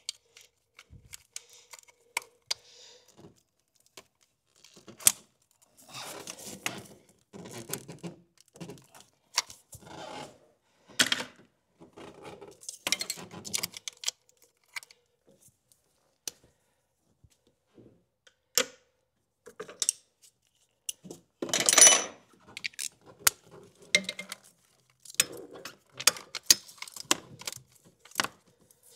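Hand tools clicking and clinking on metal as the nut holding the battery cable to the starter is worked loose. The sounds come in scattered short clicks and rattles; the longest and loudest rattle, about a second, comes about three-quarters of the way through.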